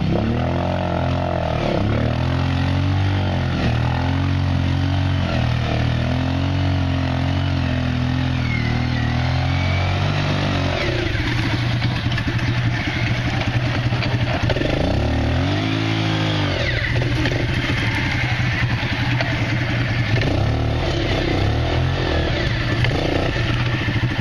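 Quad bike engine revved again and again, its pitch rising and falling, as the machine is worked through deep mud and water; one longer rev comes about fifteen seconds in, after which it runs on steadily.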